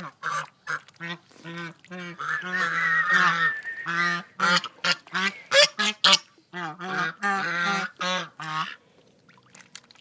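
Goose and ducks calling: a quick run of short, harsh honks and quacks, with a few longer drawn-out honks, stopping about nine seconds in.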